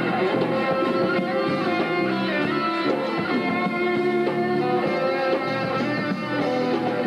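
Live rock band playing, with guitars to the fore over a dense, steady band sound.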